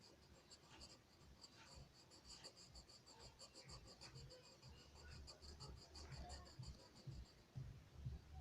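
Quick, repeated scratching strokes of a drawing tool on paper, about five or six a second, stopping about seven seconds in. A few dull low knocks follow near the end.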